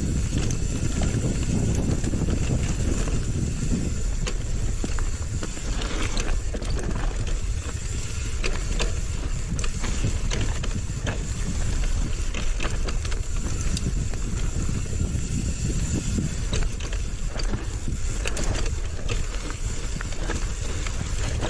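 Mountain bike riding fast down a rough dirt trail: a continuous rumble of tyres over dirt and roots, with the bike rattling and knocking throughout.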